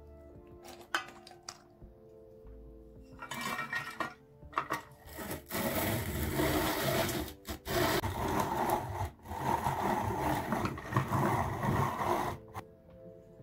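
A harsh grinding, rasping noise in several bursts with short breaks, starting about three seconds in and stopping near the end, over soft background music.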